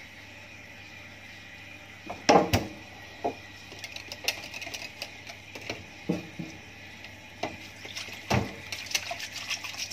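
Wire whisk beating a yogurt-and-starch mixture in a small bowl: a couple of louder knocks about two seconds in, then quick, irregular clicking and rattling of the whisk against the bowl.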